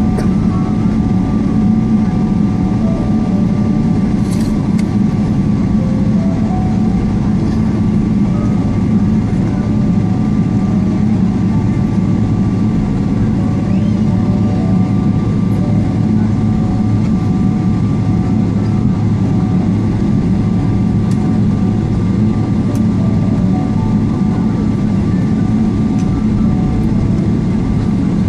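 Steady drone of a Boeing 777-300ER's engines and rushing air heard from inside the passenger cabin, even and unbroken, with a faint steady hum in it.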